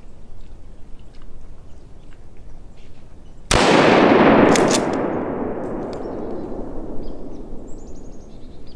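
.308 rifle fired once about three and a half seconds in: a single sharp, loud report that rolls away and echoes for several seconds, with a second short sharp sound about a second after it.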